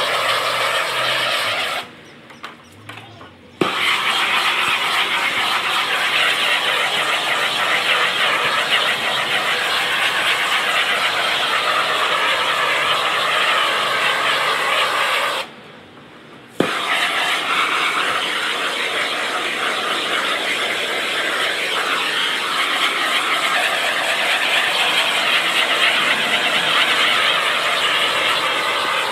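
Propane shrink-wrap heat gun blowing with a steady roaring rush, shrinking plastic wrap. It cuts out twice for a second or so and comes back on abruptly.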